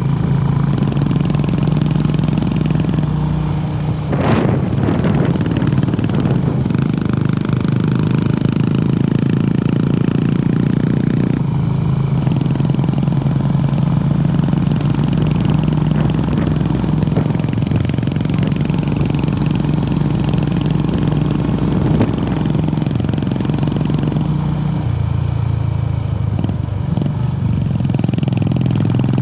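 Honda CB350RS single-cylinder engine running steadily while the motorcycle is ridden. The engine note dips briefly about four seconds in, changes again around eleven seconds, and settles lower for the last few seconds.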